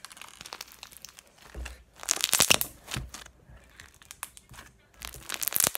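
Crunchy slime with floam beads squeezed and kneaded by hand, giving crackling and popping in bursts: the loudest around two seconds in and again near the end.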